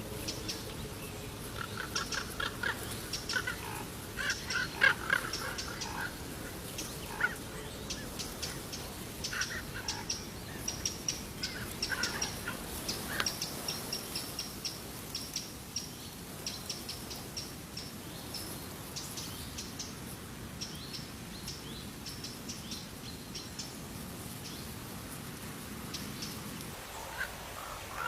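Bird calls: a fast run of short, sharp chirps and chattering notes, thinning out in the second half.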